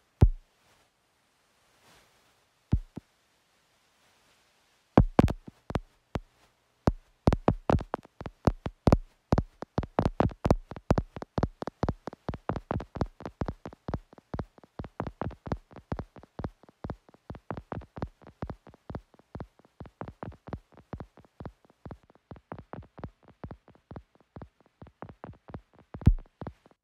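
Electronic music from a laptop set made of sharp percussive clicks: a few isolated clicks at first, then from about five seconds in a fast train of clicks, about four or five a second, which grows gradually quieter.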